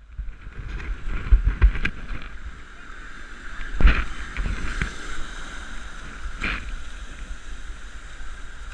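Wind rumbling on the microphone over surf breaking against rocks. Several knocks and bumps from the camera being handled come through, the loudest about four seconds in.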